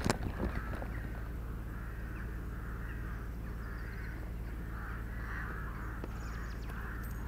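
Distant crows cawing over and over, about one and a half calls a second, over a steady low rumble of wind on the microphone. A single sharp knock right at the start.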